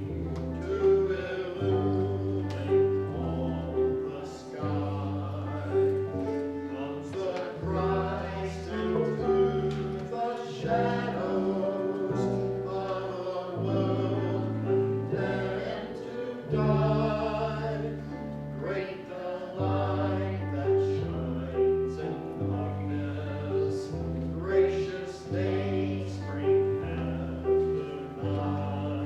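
A hymn: voices singing together over instrumental accompaniment with held bass notes that change every second or two.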